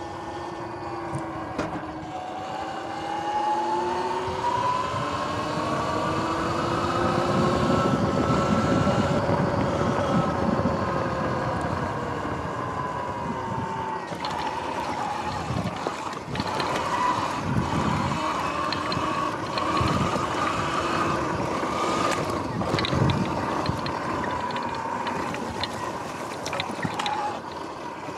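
Sur-Ron X electric dirt bike's motor whining, the pitch climbing as the bike speeds up over several seconds and then falling as it eases off, over tyre and wind noise. In the second half the whine holds steady while short knocks and rattles come from riding over rough ground.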